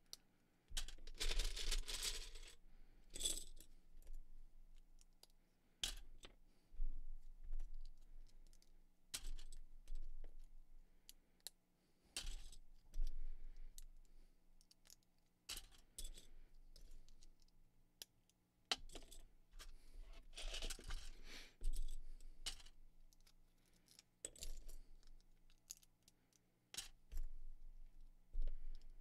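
Small plastic Lego pieces clicking as they are snapped together, in scattered sharp clicks. Loose pieces clatter in longer rattling bursts about a second in and again around twenty seconds in.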